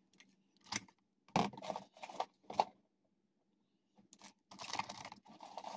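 Plastic rustling and clicking as tin can badges in plastic wrappers are handled and slotted into a clear plastic organizer case, in short bursts with a pause of about a second in the middle.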